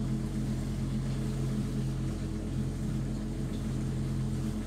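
Boat motor running steadily at a slow cruise of about 8 km/h: an even hum made of several held low tones.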